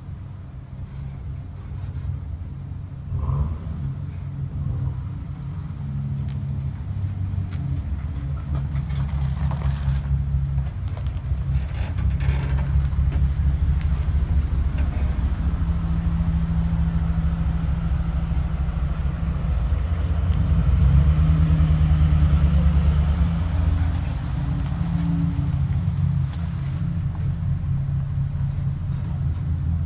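Ford F-150 pickup's engine running at low speed close by, a steady low drone that grows louder through the middle as the truck manoeuvres. There are two brief higher-pitched sounds, about three seconds in and again around twelve seconds.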